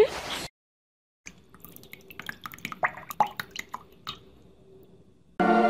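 Light water drips and small splashes as a duckling moves in a shallow white basin of water, a string of scattered sharp ticks. Music starts near the end.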